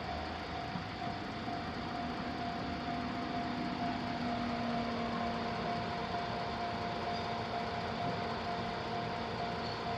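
Japanese railway level-crossing warning bell ringing: one tone repeated in a steady, even pulse over a constant rumble of background noise.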